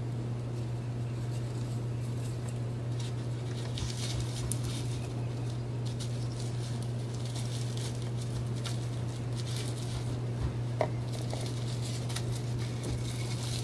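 Hands unwrapping and handling a disassembled tobacco pipe: faint rustling and a few light clicks, over a steady low hum.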